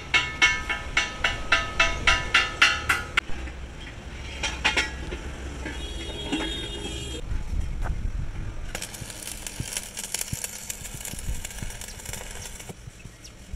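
Quick hammer strikes on a steel truck wheel rim, about four a second for some three seconds, each one ringing, then a few scattered knocks. From about nine seconds in comes the crackle and hiss of arc welding on the rim.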